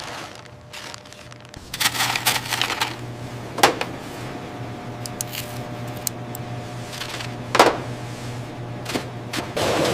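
Factory processing machinery running with a steady low hum, with a burst of clattering about two seconds in and single sharp knocks near the middle and later on.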